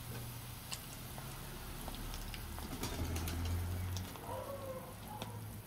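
Pot of chicken and young tamarind-leaf soup at a rolling boil: steady bubbling with many small pops, over a low hum that swells briefly a little past the middle.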